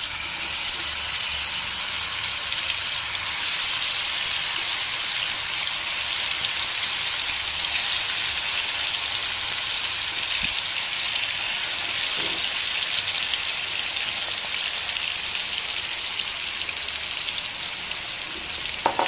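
Marinated chicken pieces deep-frying in hot oil in a kadai: a dense, steady sizzle that builds over the first few seconds as more pieces go into the oil.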